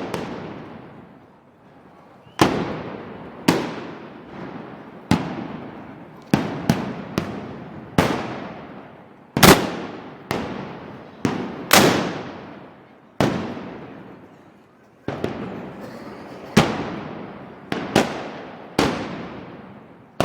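A string of loud gunpowder bangs, about sixteen of them, going off irregularly about once a second, each followed by a long echoing tail. There is a gap of about two seconds at the start before the bangs resume.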